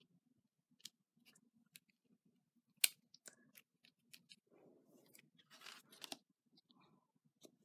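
Paper pieces being handled and pressed onto a card: scattered light clicks and taps, the sharpest about three seconds in, with paper rustling past the middle.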